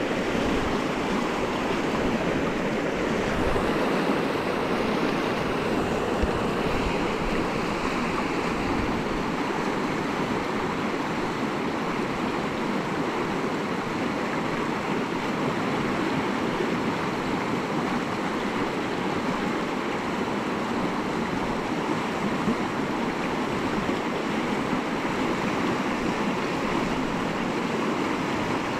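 Steady rush of river rapids, fast shallow water running over ledge rock. In the first several seconds low buffeting from wind on the microphone sits under it.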